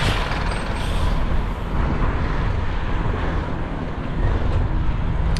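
Steady city road traffic noise heard from a moving bicycle.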